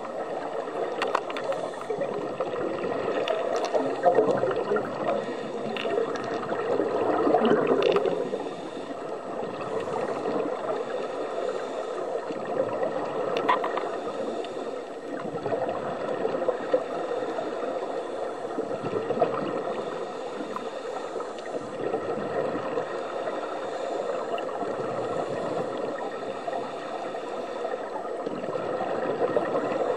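Scuba regulator breathing heard underwater: exhaled bubbles gurgling in swells every three to four seconds over a steady rush of water noise.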